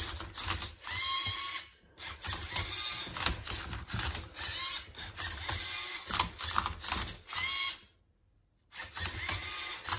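LEGO Mindstorms EV3 motors whirring in short runs as the MindCuber robot turns and tips a Rubik's Cube, with plastic clicks between moves. The sound drops out briefly about eight seconds in.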